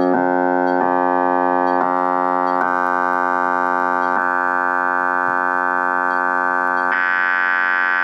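Loudspeaker driven by a function generator's rapidly repeating single-cycle pulse bursts, giving a steady, buzzy electronic tone. Its timbre changes abruptly about five times as the burst frequency is stepped up, and it turns brighter near the end.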